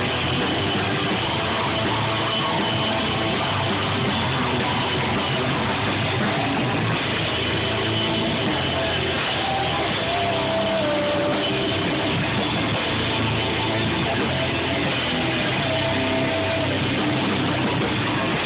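Live rock band playing loud and without a break: electric guitars and a drum kit with cymbals.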